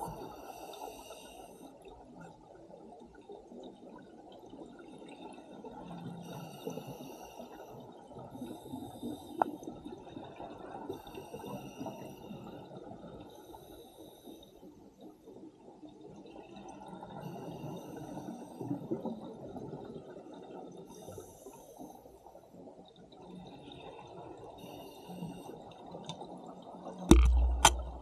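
Sidemount scuba diver breathing on open-circuit regulators underwater, heard through the camera housing: a short hiss on each breath every few seconds and the rush of exhaled bubbles. Near the end a heavy thump, the loudest sound, knocks against the camera.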